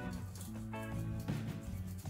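Background music with a sequence of short held notes.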